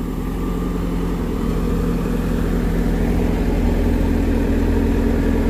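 JCB backhoe loader's diesel engine working under load as its bucket pushes a truck trailer into line. The engine runs steadily and picks up a little in pitch and loudness about halfway through.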